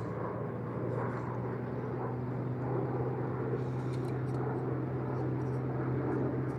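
Steady low drone of a distant engine, a held hum that does not change, over the rushing noise of the river.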